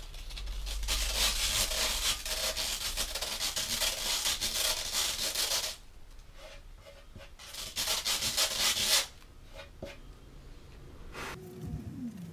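Metal file rubbed in quick strokes along the edge of skateboard grip tape on the deck's nose, sanding the grip down so it won't flick up or cause grip thumb. A long rasping bout ends a little before halfway, and a shorter one follows about two seconds later.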